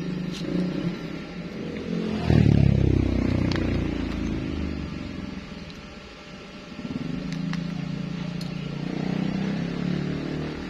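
An engine passes, loudest about two seconds in, its pitch falling as it goes by. A steady low engine hum follows later on.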